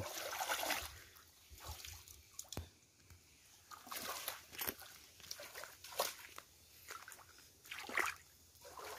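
Hands working in shallow stream water, sloshing and splashing: faint, irregular small splashes and drips, a few sharper ones scattered through.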